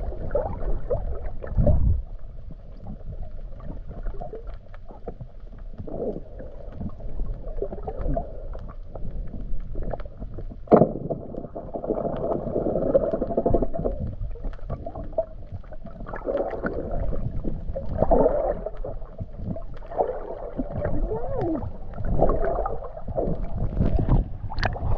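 Muffled underwater noise picked up by a camera held below the surface: water swishing and gurgling against the housing. A single sharp knock comes about eleven seconds in.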